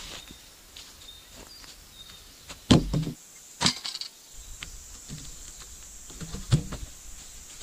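A few sharp knocks and thuds, the loudest about three seconds in and another near the end, with smaller clicks between them, over a faint steady high-pitched hiss.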